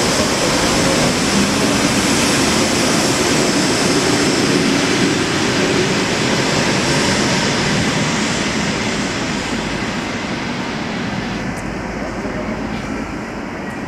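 ED4M electric multiple unit running past at speed with a steady noise of wheels on rail, fading gradually over the last few seconds as the train pulls away.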